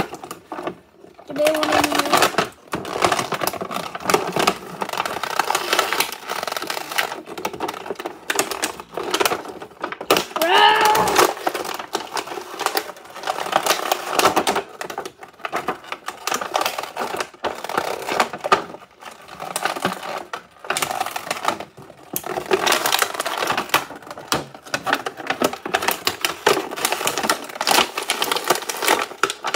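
Clear plastic bag crinkling and crackling in many quick irregular bursts as it is handled and pulled at to free a toy figure from it.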